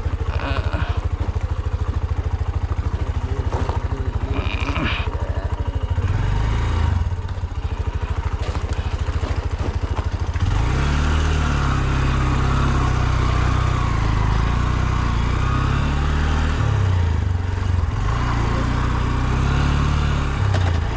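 Honda Shine motorcycle's single-cylinder four-stroke engine running at low revs on a rough dirt trail, its firing pulses evenly spaced. About ten seconds in, the engine note starts rising and falling again and again with the throttle, under a steady hiss.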